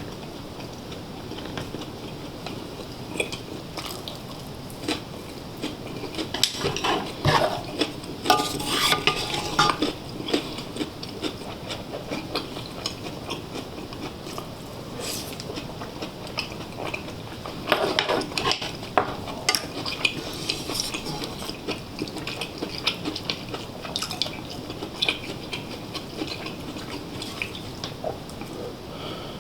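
Metal utensils clinking and scraping against bowls and a pot in irregular clatters, busiest about 7 to 10 seconds in and again around 18 seconds, over a steady background hiss.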